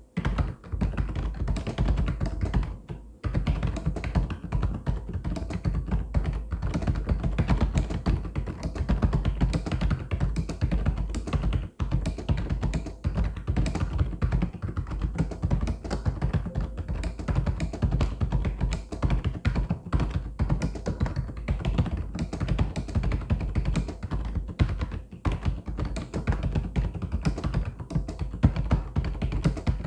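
Fast, continuous typing on a mechanical keyboard: a dense run of key clacks, with short pauses about three seconds in and near twelve seconds.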